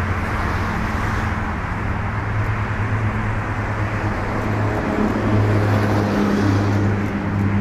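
Boeing 737-700's twin CFM56-7B turbofans at takeoff power, a steady loud jet noise with a deep hum underneath as the airliner rolls, rotates and lifts off. The hum grows a little louder about five seconds in, around lift-off.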